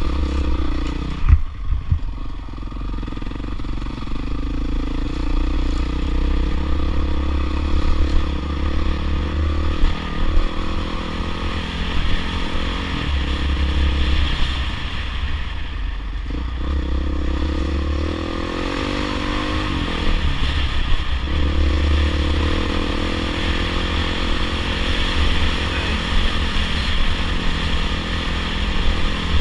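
Dirt bike engine running under way, the throttle easing off and picking up again several times.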